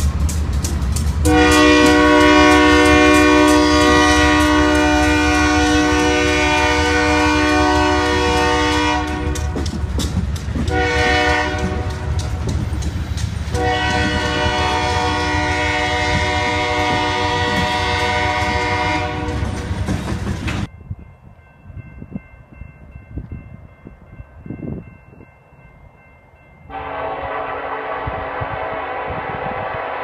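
Freight train cars rolling past with a steady low rumble while a diesel locomotive horn sounds three blasts, long, short, long. The rumble cuts off abruptly about two-thirds through, leaving a quiet stretch with faint steady tones, then an approaching locomotive's horn starts a long blast near the end.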